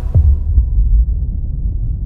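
The closing bass boom of an animated logo intro's music: a deep hit just after the start, a smaller one about half a second later, and a low rumble that carries on.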